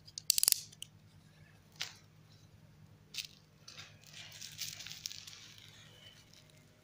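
Handling noises near a laptop: a quick rattle of clicks about half a second in, then a few single clicks and a soft rustle around four to five seconds in, over a faint low steady hum.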